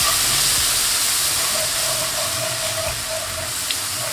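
Butter-and-flour roux sizzling with a steady hiss in a hot pan while it is whisked, as stock is being added to it.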